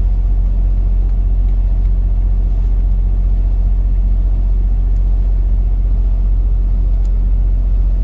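A steady low hum that holds constant without change.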